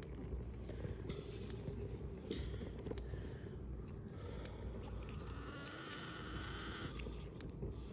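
Small fatwood fire crackling and snapping in irregular short pops, under a steady low rumble of wind buffeting the microphone.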